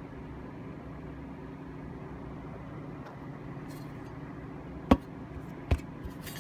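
A thin sheet-steel toy part being handled, giving two sharp clicks a little under a second apart near the end, followed by a couple of fainter ticks. A steady low mechanical hum runs underneath.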